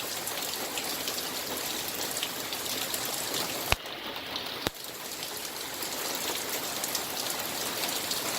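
Heavy rain falling steadily, with a running-water sound. About halfway through come two sharp clicks a second apart, and the rain sounds duller between them.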